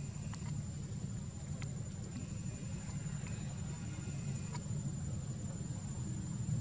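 Outdoor ambience: a steady, high-pitched insect drone over a low, steady rumble, with a few faint ticks.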